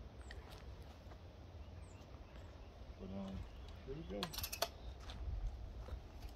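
Quiet handling sounds over a low steady hum: a brief murmured voice about three seconds in, then a quick cluster of sharp clicks about four seconds in.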